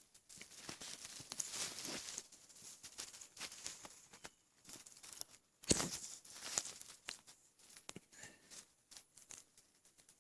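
A muffled, closed-mouth hiccup a little past halfway through, from a stomach bloated with milk, amid crackling and rustling close to the microphone.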